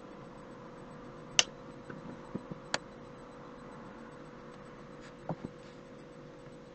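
Steady hum and room noise with a few scattered sharp clicks and taps, the loudest about a second and a half in and another a little over a second later.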